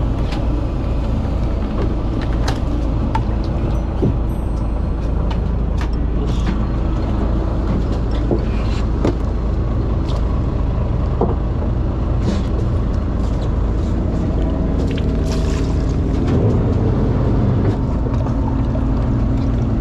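A fishing boat's engine running in a steady low drone, with scattered knocks and clatter from fish and gear being handled on the deck.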